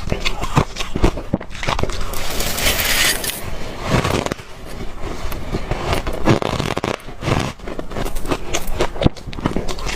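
Crushed ice from a deep freezer being chewed: dense, irregular crunching and squeaking bites, with a longer scraping sound about two to three seconds in.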